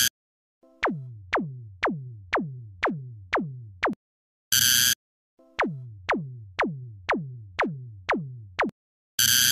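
Synthetic cartoon sound effects as animated signal lamps drop into place: a run of quick falling-pitch zaps, about two a second, broken about halfway and near the end by a short, loud, hissy burst.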